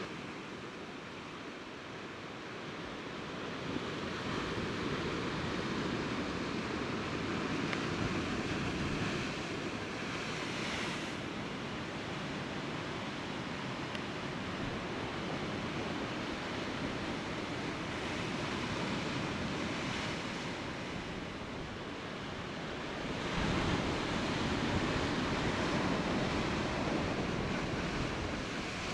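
Sea waves surging and washing against shore rocks, rising and falling in swells, the loudest about four-fifths of the way through, with some wind on the microphone.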